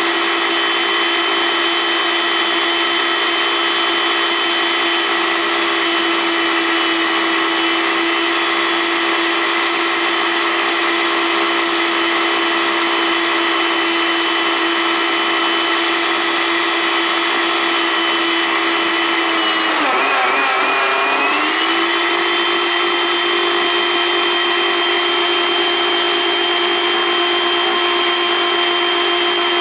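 Countertop blender motor running at a steady high whine, churning whipping cream into butter. About two-thirds of the way through, the motor note dips and wavers for a couple of seconds, then settles again.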